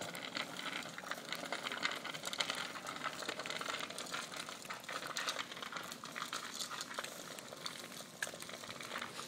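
A child's bicycle with training wheels rolling on rough pavement: a steady crackly rattle from the tyres and small training wheels, dotted with irregular little ticks.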